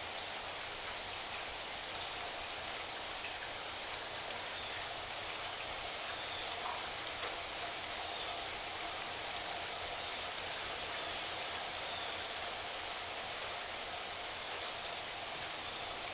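Steady rain falling: an even hiss with small scattered drop ticks.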